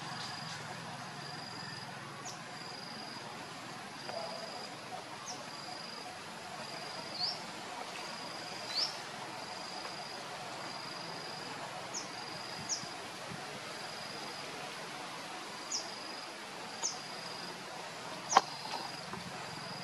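Insect calling outdoors: a short high note repeating at an even pace, about once a second, over a faint steady background hiss, with a few brief rising chirps. A single sharp click near the end is the loudest sound.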